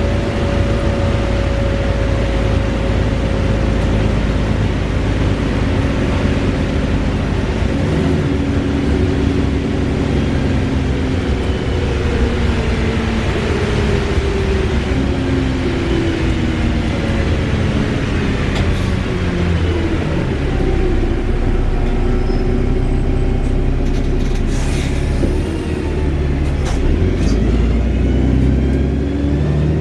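Wright Gemini 2-bodied VDL DB300 double-decker bus running, with its drivetrain whirring loudly over a steady low rumble. The whir and engine pitch fall and rise again several times as the bus slows, pulls away and changes gear.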